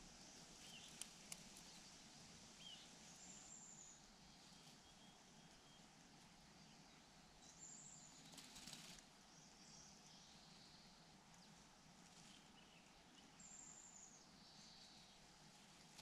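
Faint outdoor ambience with distant wild birdsong: a short high whistled phrase recurring every four to five seconds among softer chirps. Two faint clicks come about a second in, and a brief rustle a little past eight seconds.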